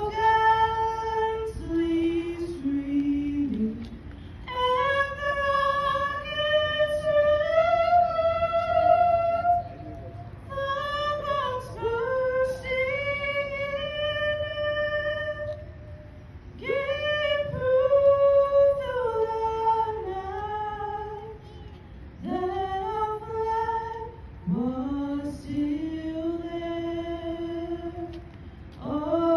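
Solo woman singing the national anthem a cappella into a handheld microphone, amplified through a PA loudspeaker: long held notes in phrases with short breaths between them, over a faint low background rumble.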